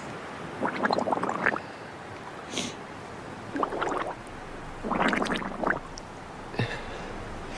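Water splashing and sloshing around swimmers' bodies in several short bursts.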